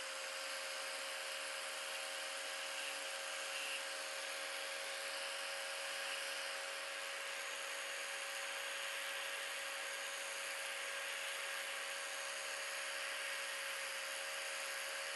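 Electric angle grinder running at full speed with a steady whine while the end of a steel bandsaw blade is held against its abrasive disc, grinding the end square.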